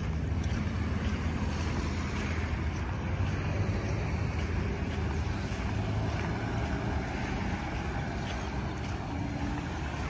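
Wind buffeting a phone microphone, a steady low rumble, over an even wash of outdoor noise.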